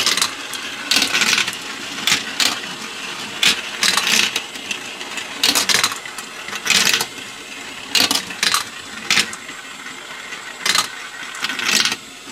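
Glass marbles rolling and clattering through a plastic marble run, with irregular sharp clicks as they drop and knock against the track pieces, over the steady whir of the toy's belt lift.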